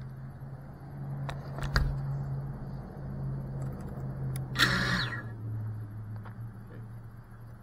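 A steady low motor hum, with a few sharp clicks in the first two seconds and a short falling hiss just before five seconds in.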